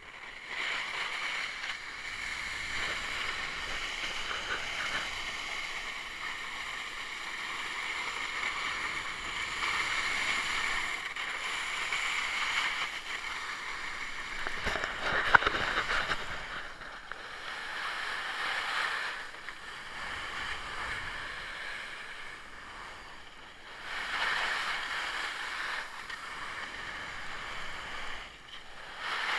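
Snowboard base and edges sliding over snow, a continuous scraping hiss that swells and fades as the board turns, with a sharper, louder scrape about halfway through.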